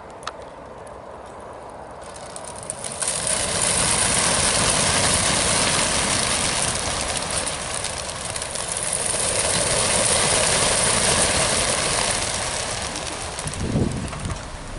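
A mass release of racing pigeons from a transport truck's crates: after a single click near the start, the wingbeats of the whole flock build about two to three seconds in into a loud, even whirring rush that holds and eases a little near the end.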